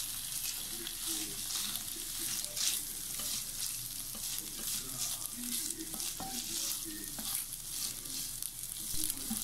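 Boiled, shredded chicken sizzling as it fries in hot oil in a frying pan, stirred and scraped with a wooden spatula in repeated strokes.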